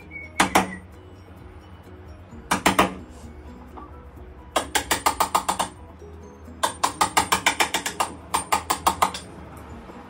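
A ratchet screwdriver driving screws into a nightlatch staple on a door frame: three runs of rapid ratcheting clicks, about ten a second, after a couple of knocks.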